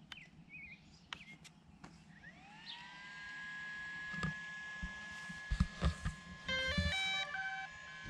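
DJI Phantom quadcopter powering up. A few button clicks, then about two seconds in an electronic whine rises and settles to a steady pitch. A few soft knocks follow, and near the end comes a short run of stepped electronic beeps, the drone's start-up tones.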